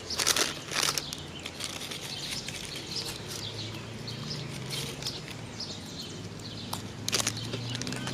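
Eating sounds: chewing and handling of fast food and its packaging, with sharp crackles near the start and again about 7 s in, over a low steady hum.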